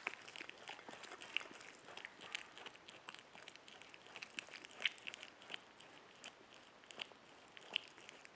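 A capybara chewing and biting into a yam: a faint, irregular run of small crunching clicks.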